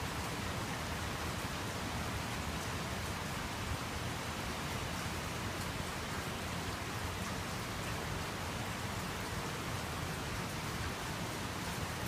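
Very heavy typhoon rain falling steadily: a dense, even hiss with faint drop ticks through it.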